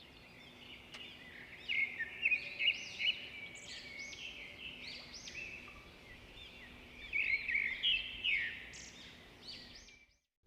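Songbirds chirping and singing: many quick rising and falling notes, busiest about two seconds in and again about seven seconds in, over a faint steady hum.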